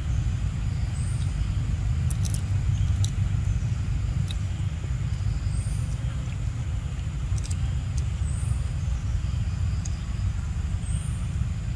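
Steady low outdoor rumble, with four faint short high chirps spread across it and a few sharp ticks.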